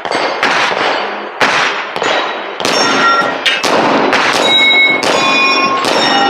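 Rapid gunfire at steel targets: about two shots a second, with many of them followed by the ringing clang of a struck steel plate, which holds a clear tone for a moment.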